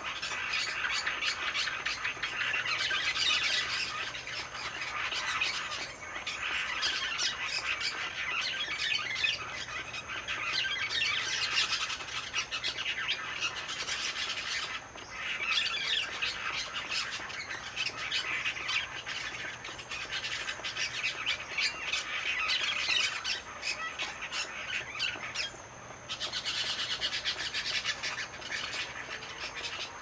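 A group of green parakeets squawking harshly and almost without a break, many rapid overlapping calls, as the birds squabble over a perch. The calling eases briefly three times.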